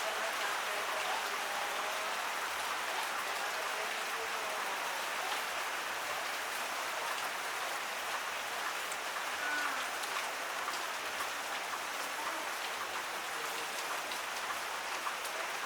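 Heavy rain falling steadily, an even hiss of drops on surfaces that holds level throughout.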